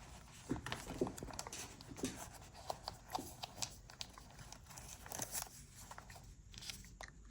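Faint rustling and crinkling of packaging, with many small irregular clicks and taps, as camera accessories are handled and unwrapped.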